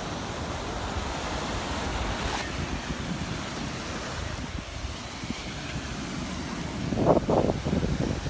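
Gulf of Mexico surf washing onto the beach, with wind blowing across the microphone. The wash is a steady hiss that is brighter in the first couple of seconds.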